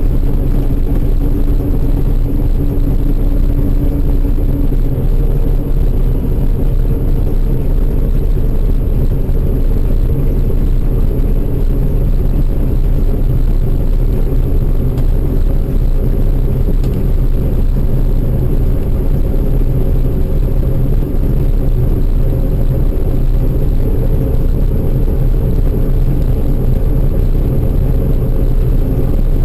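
Heavy farm machinery engine running steadily under load, a constant low drone with no breaks.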